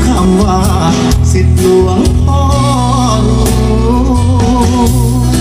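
A song with singing over a heavy, steady bass line, played through 4.5-inch Apple speaker drivers in a bandpass subwoofer box as a sound test.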